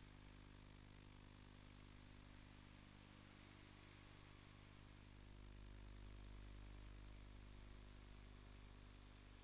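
Steady low electrical hum with constant hiss: the noise floor of an analog FPV video recording, with no distinct event. The low end swells slightly a little past the middle.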